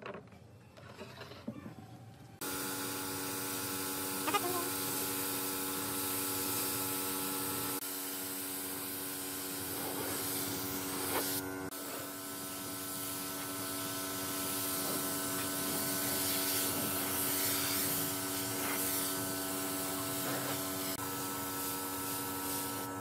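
Air spray gun hissing steadily as it sprays finish, with a steady hum under it. It starts suddenly a couple of seconds in and breaks off briefly about halfway, after faint handling sounds at the start.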